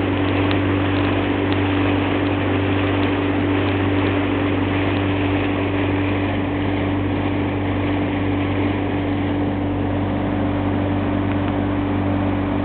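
Small motorboat's engine running steadily as the boat cruises, a constant hum that holds the same pitch.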